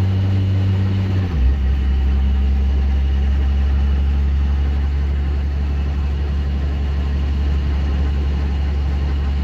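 Cummins 12-valve diesel engine droning steadily under way, heard from inside the truck's cab. About a second and a half in, its pitch drops a step and then holds at the lower engine speed.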